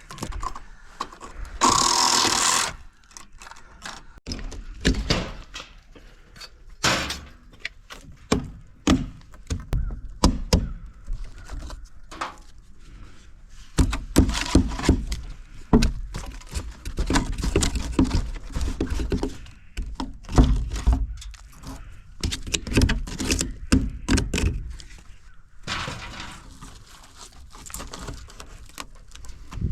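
Demolition work on a mobile home wall: irregular knocks, thuds and scrapes as rotten wood and siding are pried and pulled away, with a loud rasping tear about two seconds in.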